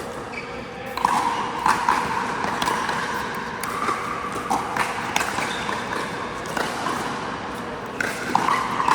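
Pickleball paddles hitting a plastic pickleball in a rally: a series of sharp pops at uneven intervals, with some ringing after several of them.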